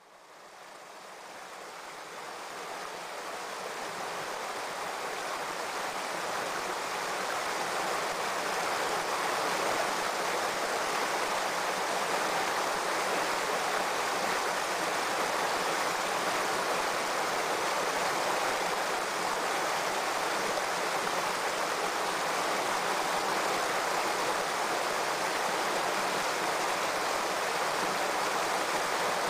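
Shallow, rocky stream running over stones, a steady even rush of water that fades in over the first several seconds and then holds level.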